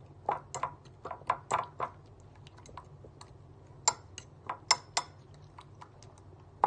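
Eggs and malungay leaves being beaten by hand in a ceramic bowl: a metal utensil clicks against the bowl in quick, uneven strokes, a few clicks a second.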